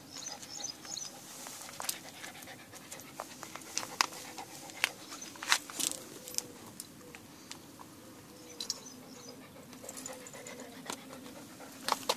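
Small terrier panting, with scattered sharp clicks and knocks throughout.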